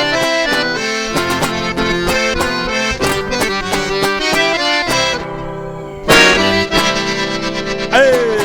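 Instrumental ending of a sertanejo song: accordion leading over strummed and plucked guitar, closing on a loud final chord about six seconds in that rings out.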